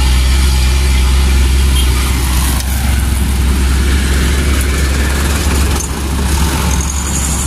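Diesel truck engine running close by, a steady low drone with road and traffic noise over it.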